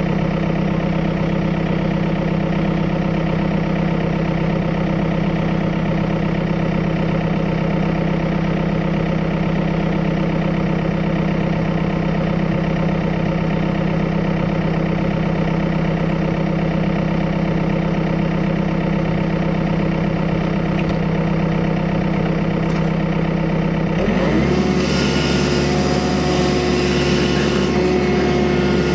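Excavator's diesel engine running steadily. About 24 seconds in the sound changes abruptly to a fuller, busier one, as the machine comes under load or a new shot begins.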